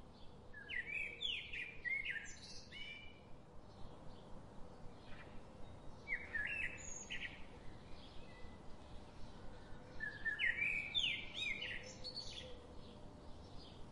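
Bird song: three phrases of quick chirps and whistled glides, spaced about four to five seconds apart, over a faint steady hiss.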